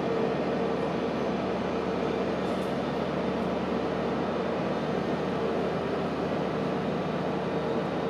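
Airbus A320neo jet engines running at taxi idle, heard as a steady hum with a held mid-pitched tone, muffled through terminal window glass.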